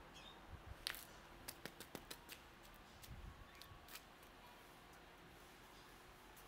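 Near-silent background with a string of about ten faint, sharp clicks over the first four seconds, the loudest about a second in, then quiet.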